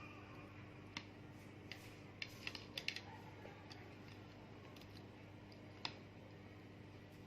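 Quiet room with a steady low electrical hum and a few light clicks and taps: a single click about a second in, a quick run of five or six around the third second, and one more near the sixth second.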